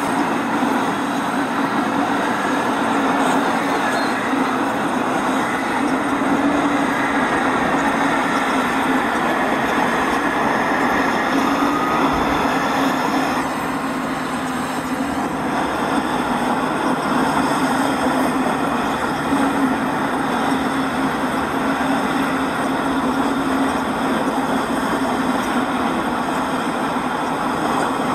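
Model freight trains running on the layout: a steady mechanical rumble and hum that holds level throughout.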